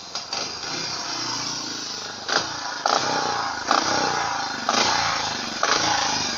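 Godden GR500 speedway bike's 500 cc single-cylinder engine running, its throttle blipped again and again. The revs jump sharply about once a second and fall away after each blip.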